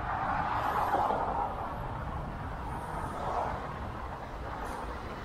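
City street traffic noise heard while riding, a steady rushing haze that swells twice, about a second in and again near the middle, as vehicles pass.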